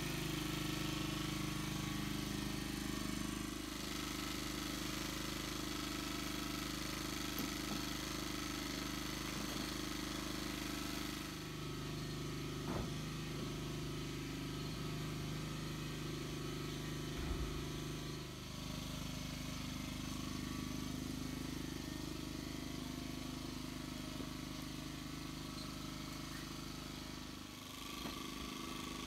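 An engine running steadily at idle, with a couple of short knocks of wooden boards being handled.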